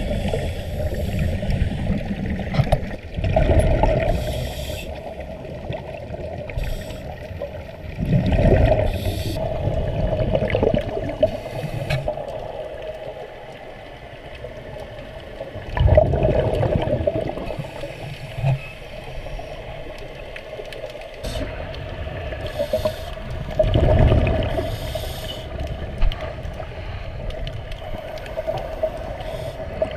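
Underwater sound in a camera housing: a scuba diver's exhaled bubbles gurgling out of the regulator in four loud surges a few seconds apart, over a steady hum.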